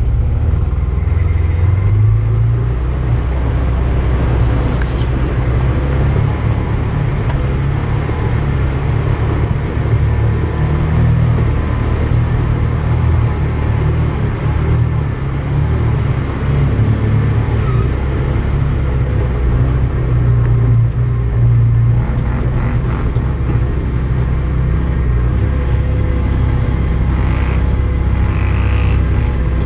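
Off-road vehicle engine running steadily while driving a muddy trail, heard close up from a mount on the vehicle, its note shifting now and then with the throttle. A thin steady high whine sits over it.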